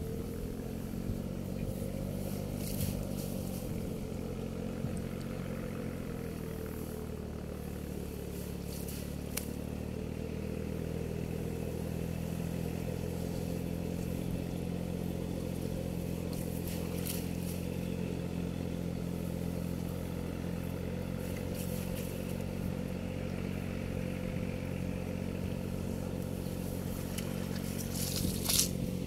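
An engine running steadily with slight shifts in pitch, with a few brief clatters and scrapes, the loudest near the end.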